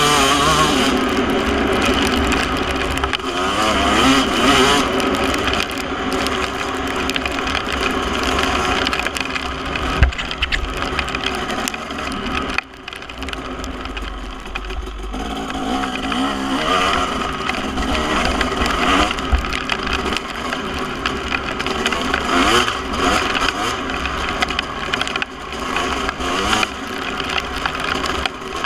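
KTM SX250 two-stroke dirt bike engine through a Pro Circuit R-304 shorty silencer, revving up and down as the bike is ridden hard along a trail. A sharp knock comes about ten seconds in, and the engine sound drops briefly a little before halfway as the throttle is closed.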